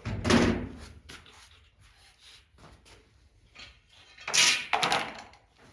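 Two short bursts of clattering and scraping, the second about four seconds after the first, with faint clicks between.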